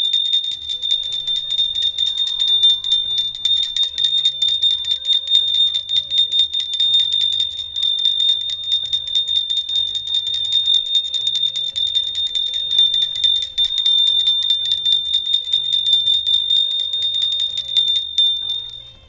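Puja bell rung rapidly and continuously, a high, dense ringing that stops abruptly about a second before the end, over background music with a stepping bass line.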